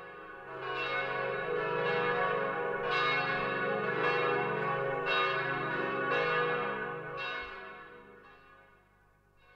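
Church bells ringing, several bells together with a new strike about once a second, then dying away over the last two seconds.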